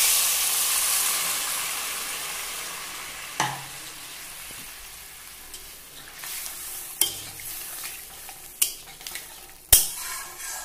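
Hot oil in a steel kadai sizzling loudly as water is poured in, the hiss dying away over about four seconds. Then a metal spatula stirs and scrapes the pan, with a few sharp clinks against the steel.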